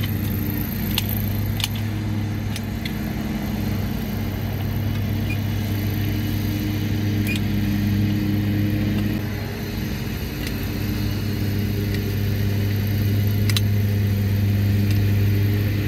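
A steady, loud, low machine hum from a running motor or engine, even throughout. Over it come a few sharp clicks from a caulking gun as it squeezes out lap sealant.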